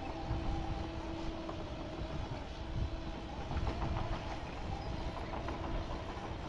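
An engine running steadily with a constant hum, with scattered light clicks and knocks over it.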